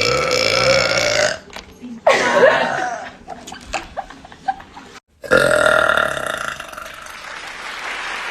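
A girl burping three times: a long, steady burp at the start, a shorter one that wavers in pitch about two seconds in, and a long drawn-out burp from about five seconds in that slowly fades.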